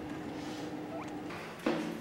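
A faint steady hum, then near the end a single footstep on a hard floor, the first of an even walking pace.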